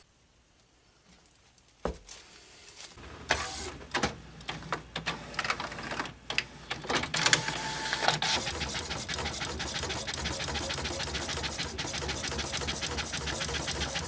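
A small motorized machine running steadily with a fast, even rhythm, after a few knocks and handling sounds in the first seconds.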